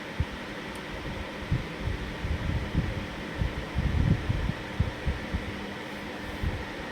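Faint steady hum with a scatter of soft, irregular low thumps.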